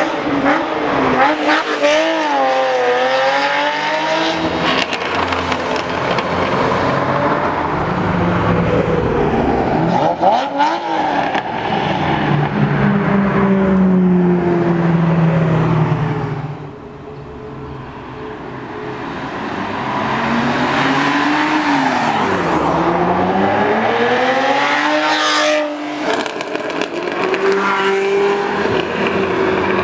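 Ferrari Testarossa's 4.9-litre V12 breathing through a Fuchs exhaust with race pipes, loud, accelerating hard and revving, its pitch climbing and dropping through gear changes across several passes. It eases off about halfway through, then builds again and cuts off sharply near the end.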